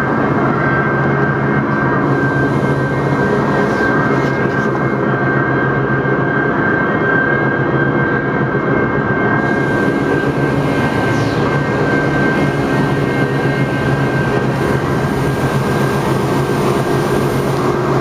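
River rapids ride: churning water with the ride's machinery running, a steady mechanical hum and a constant high whine.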